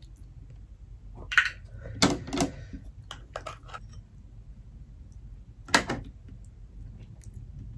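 Cooked lobster shell cracking and snapping as it is picked apart by hand: a sharp crack about a second and a half in, a quick cluster of cracks and clicks between two and four seconds, and one more sharp crack near six seconds.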